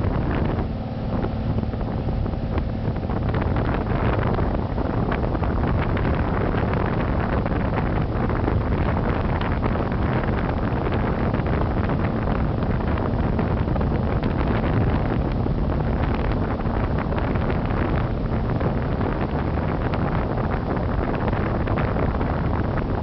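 1935 Chris-Craft wooden runabout under way: its inboard engine runs steadily beneath wind buffeting the microphone.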